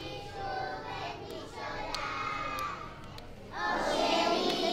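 Children's voices, then a little over three seconds in a large group of young children starts singing together, much louder.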